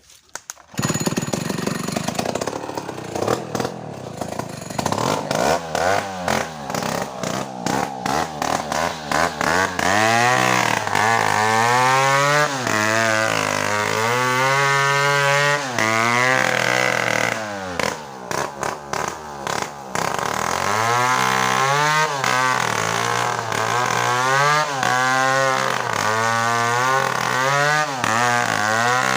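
Two-stroke chainsaw starting up about a second in after being pull-started. It then runs with its engine speed rising and falling again and again as the throttle is worked, easing off briefly about two-thirds of the way through.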